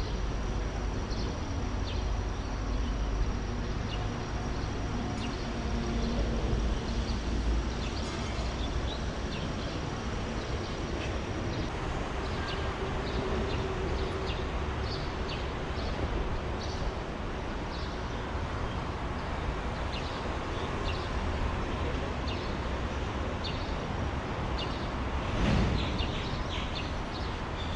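Steady rumble of traffic on the elevated highway overhead, a continuous deep drone, with scattered faint high chirps over it.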